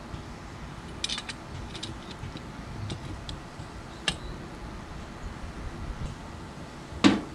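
Scattered light metallic clicks and taps as steel tubes are worked into a right-angle corner clamp, then one louder knock near the end.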